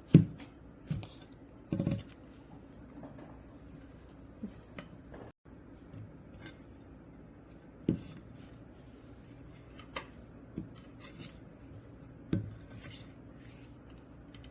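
Cutlery and dishes clinking and knocking now and then, a few sharp knocks seconds apart with quieter handling sounds between.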